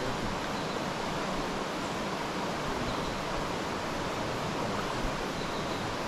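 A shallow, stony river running, a steady, even rush of water.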